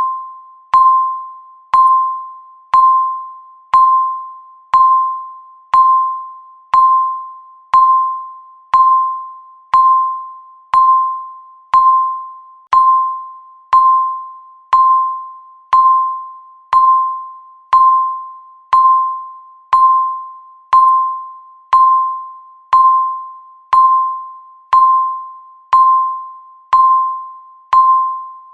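Countdown timer ticking once a second: each tick is a sharp click with a single high ringing tone that fades before the next.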